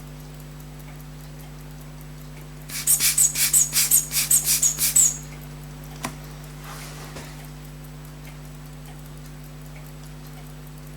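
A quick run of about a dozen squeaky puffs, roughly six a second, from a rubber-bulb hand air blower being squeezed to blow air at the watch movement and free it up; a single click follows. A steady electrical hum runs underneath.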